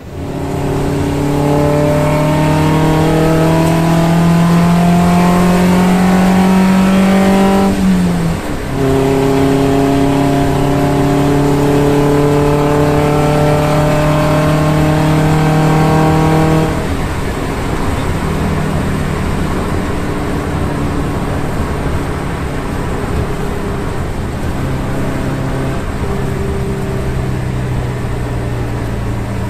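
Van engine heard from inside the cab, pulling hard: its note rises steadily for about eight seconds, drops at a gear change, climbs again, then falls to a quieter steady cruise about sixteen seconds in.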